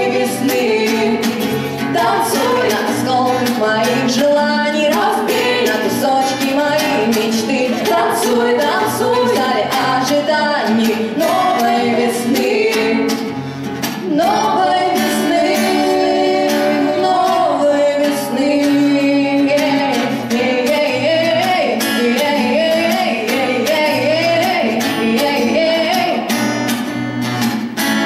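A woman singing a song into a microphone, accompanied by a steadily strummed acoustic guitar.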